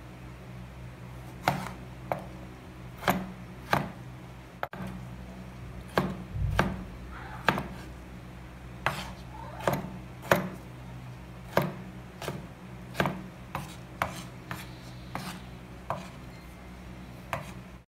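Kitchen knife chopping tomatoes on a wooden cutting board: irregular sharp knocks of the blade hitting the board, about one or two a second, over a steady low hum.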